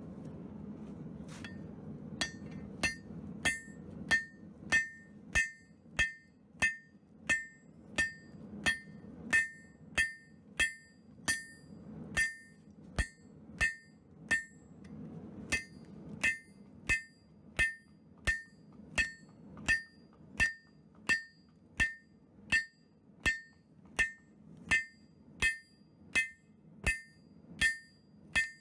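A blacksmith's hammer strikes steel on an anvil in a steady rhythm of about one and a half blows a second, each blow with a short metallic ring. This is forging the blade of a chopper.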